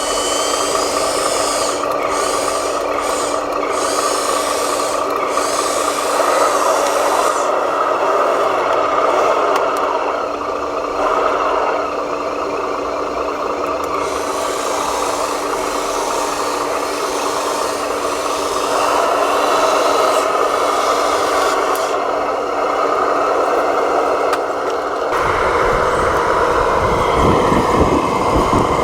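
Radio-controlled construction models' electric motors and gear drives whining steadily, with a scraping, rasping sound over them. About 25 seconds in, the sound changes and a low rumble joins.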